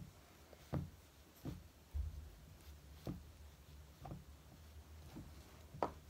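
Fingers rubbing and smoothing a soft clay cone, with soft irregular taps about once a second as hands and clay touch the worktable, over a low steady hum.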